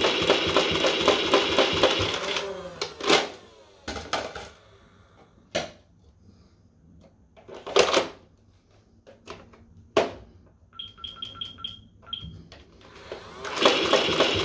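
Nerf M41-A pulse rifle blaster firing full-auto, a motor whir with darts going out at about three to four a second, stopping about two seconds in. Then come several separate plastic clacks of a magazine change, a short run of electronic beeps near eleven seconds, and full-auto firing starting again near the end.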